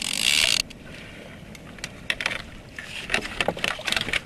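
Knocks and clatters of gear and fish being handled on a kayak: a short rush of noise at the start, then a quick run of sharp knocks in the last two or three seconds.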